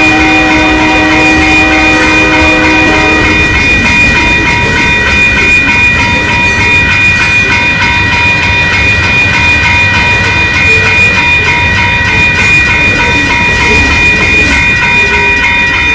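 Train passing close by with a steady rumble of wheels on rails. Over the rumble, several high held tones sound together; a lower set of them stops about three seconds in.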